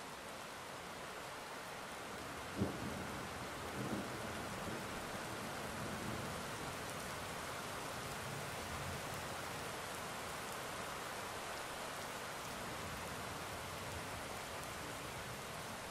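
Steady rain with thunder: a sharp clap about two and a half seconds in, then low rumbling for several seconds under the rain.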